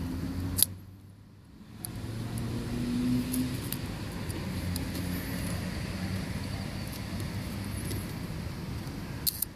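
Low steady hum of a vehicle engine, with a sharp click about half a second in, after which the hum briefly dips, and two small clicks near the end from handling the camera.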